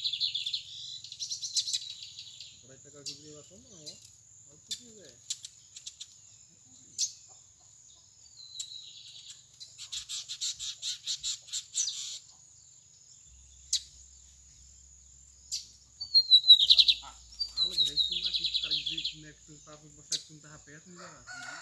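Lined seedeaters (bigodinho) singing in several bouts, each a few quick falling whistled notes running into a fast buzzy trill. A steady high insect drone goes on underneath.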